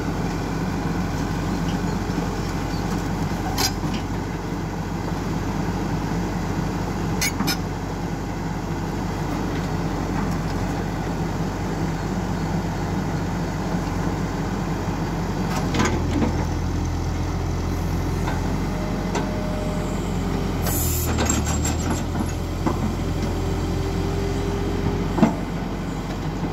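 XCMG XE140 crawler excavator's diesel engine running steadily while the machine is driven onto a flatbed trailer, with a few sharp metallic clanks. For several seconds past the middle the engine note grows heavier, with a faint whine over it.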